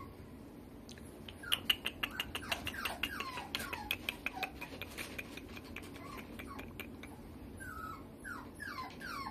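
Mixed-breed puppy whimpering: a run of short, falling whines, several a second, starting about a second and a half in, pausing briefly, then starting again near the end.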